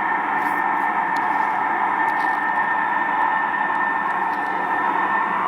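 Steady droning noise in the night sky, with a thin high whine held steady through it; its source is unexplained.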